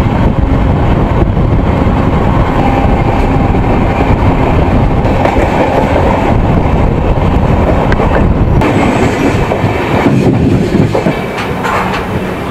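Jan Shatabdi Express running at speed: a loud, steady rumble and rattle of the coach wheels on the track, with the deep rumble easing off about eight and a half seconds in.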